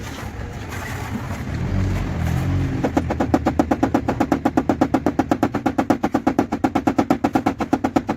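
Rapid, even tapping at about ten strokes a second, starting about three seconds in after a low rumble that rises in pitch.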